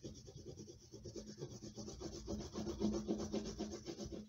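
Short, broken stick of oil pastel rubbed back and forth on paper in quick, continuous strokes, laying down a solid layer of colour.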